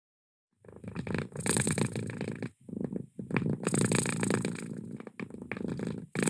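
A cat purring with each breath, a rough rumble of rapid beats that swells and breaks off briefly between breaths. It starts about half a second in.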